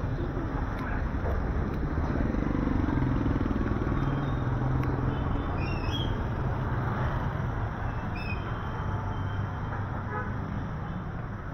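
Motorcycle engines of tricycles (motorcycles with sidecars) running close by in street traffic, a steady engine hum that is loudest a few seconds in and eases off near the end. A few brief high chirps come through around the middle.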